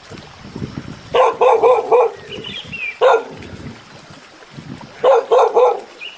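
Dog barking: a quick run of about four barks a second in, a single bark at about three seconds, and another quick run near the end.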